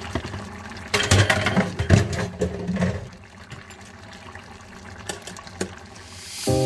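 Water running and splashing, louder for about two seconds near the start with a few knocks and clatters, then quieter.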